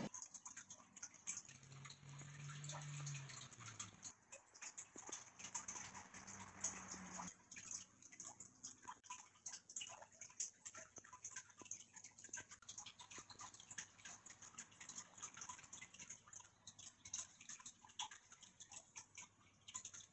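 Near silence with faint, scattered clicks and ticks, and a faint low hum for a few seconds near the start.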